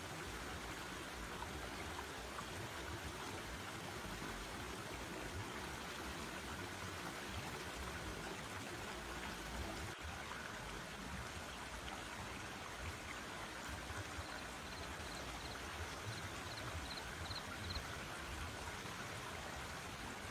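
Forest stream flowing steadily, with a brief run of faint high-pitched chirps about two-thirds of the way through.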